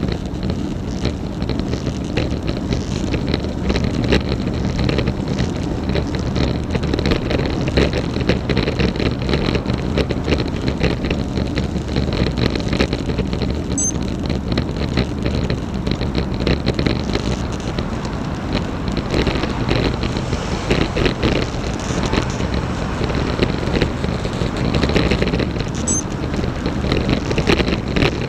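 Road bike being ridden, heard from a bike-mounted action camera: wind buffeting the microphone over steady road noise, with many short sharp clicks and squeaks through it. The squeaks are an unexplained 'kyu kyu' noise from the bike that the rider cannot trace.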